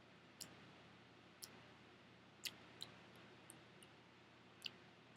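Near silence broken by about six faint, irregularly spaced computer mouse clicks.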